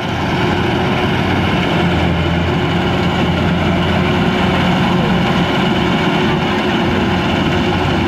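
Kubota DC-93 combine harvester's diesel engine running steadily at a constant speed while the crawler machine sits bogged in deep mud.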